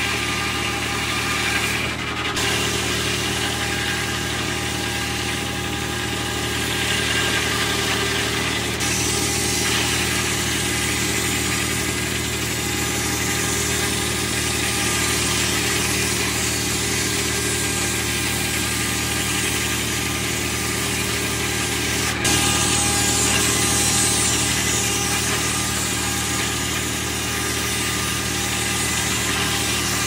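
Diesel power unit running steadily, driving the 52-inch circular saw of a 1981 Lane sawmill as it cuts larch boards, the blade's hiss through the wood over the engine's steady drone. The level jumps up suddenly about 22 seconds in.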